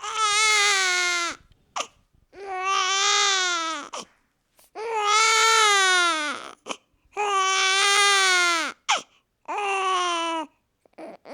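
Newborn baby crying: five loud wails of one to two seconds each, separated by short gasping breaths, each wail held steady and dropping in pitch at its end.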